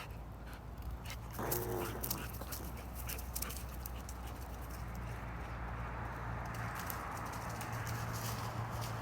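A Labrador retriever gives one short, pitched cry about a second and a half in, over a steady low hum.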